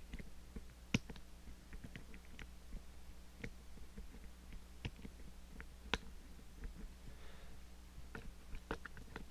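Lock picks working the levers of an Ingersoll 10-lever padlock core: irregular small clicks and taps, with two louder clicks about a second in and about six seconds in.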